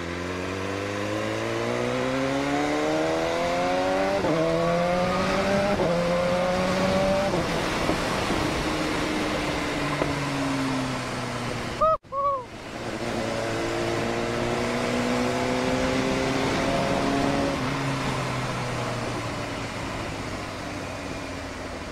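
BMW S1000RR's inline-four engine pulling hard through the gears, its note rising with two quick upshifts in the first six seconds. It then eases off, with a brief break in the sound about twelve seconds in. After that it holds a steady cruise before slowly dropping in revs toward the end.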